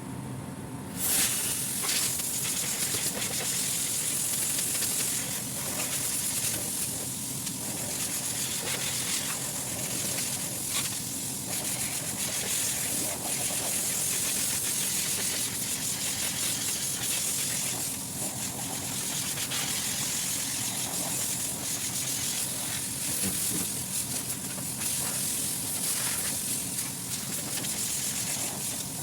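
Compressed-air blow gun hissing steadily as it blows dirt out of a cold-storage refrigeration unit to clean it, starting about a second in, with a few brief dips. A steady low machinery hum runs underneath.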